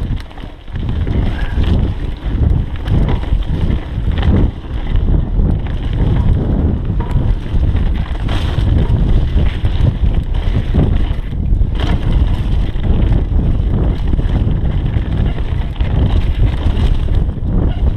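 Wind buffeting the camera microphone as a mountain bike descends a dirt trail at speed, over the rumble of the knobby tyres. Short knocks and rattles come through as the bike hits bumps.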